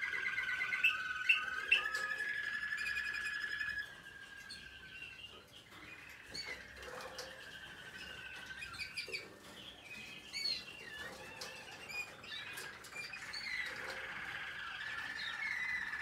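American Singer canaries singing: a steady rolling trill until about four seconds in, then quieter scattered chirps and short notes, with the trilling song building again near the end. A few sharp clicks come about a second in.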